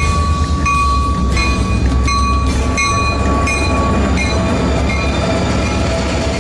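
Rocky Mountaineer diesel locomotives passing at close range with a deep, steady engine rumble. Over it, a ringing tone repeats about three times every two seconds for the first few seconds, then gives way to a steadier tone.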